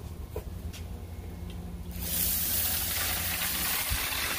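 Water sprayed from a sprayer onto a pork rib in a charcoal kettle grill: a steady hiss that starts about two seconds in.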